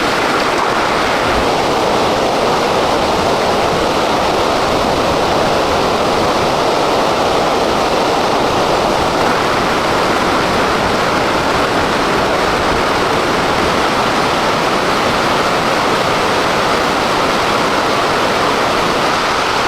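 Steady, loud rush of falling or fast-running water, even and unbroken.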